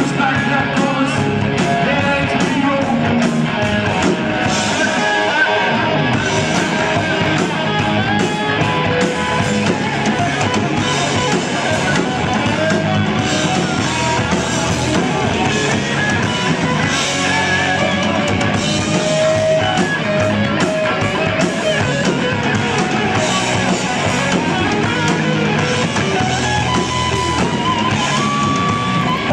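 Rock band playing: electric guitars and a drum kit, steady and loud with no break.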